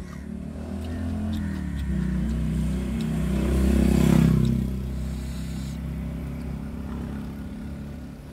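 A motor vehicle passing close by, its engine growing louder to a peak about four seconds in and then fading away, over a steady low hum.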